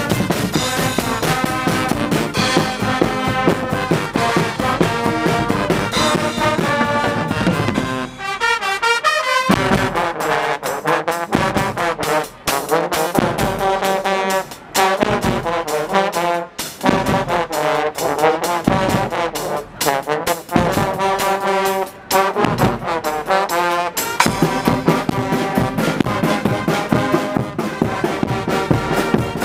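Guggenmusik carnival band playing loudly: a brass section of trumpets, trombones and euphoniums over a drum kit with cymbals. About eight seconds in the bass and drums drop back for a lighter passage broken by short pauses, and the full band comes back in near the end.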